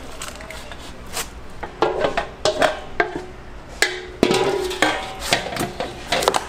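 Stainless-steel mixing bowls clanking and a metal ladle knocking against them as pancake batter is handled. A string of sharp knocks, some leaving a short metallic ring; the loudest, longest ring comes about four seconds in.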